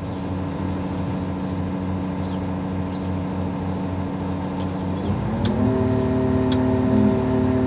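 A crane's diesel engine runs steadily, then revs up smoothly about five seconds in and holds at a higher speed as the throttle is raised for the hoist. A couple of faint clicks sound just after.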